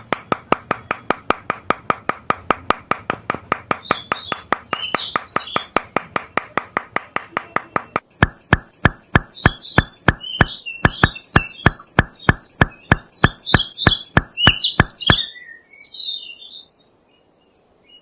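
A fast, even series of sharp knocks, about five a second, changing about eight seconds in to a slower, heavier beat that stops about three seconds before the end. Birds chirp over the knocking.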